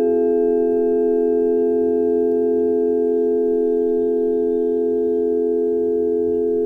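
A long sustained tone made of several close steady pitches in the lower-middle range, with faint higher overtones, holding almost level with only a slight fade.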